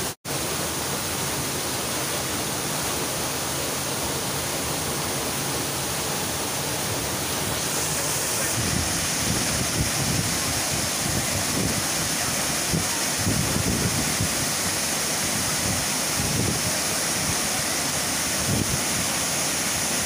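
Large waterfall pouring into a rocky pool: a steady, loud rush of water. The sound cuts out for an instant just after the start, and the hiss grows brighter about eight seconds in.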